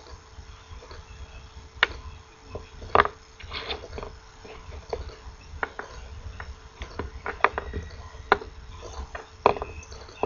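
Irregular sharp clicks and light taps of a small printed circuit board and electronic parts being handled and set down on paper, with a faint steady hum underneath.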